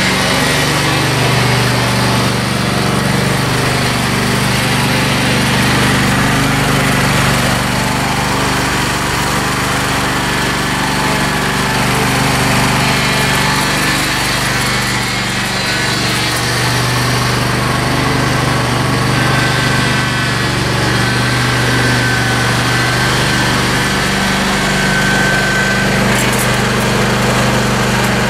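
John Deere L118 lawn tractor engine running steadily as the tractor is driven slowly on its freshly rebuilt hydrostatic transmission, working the new oil in. No odd noises come from the transaxle, and a faint high whine joins past the middle.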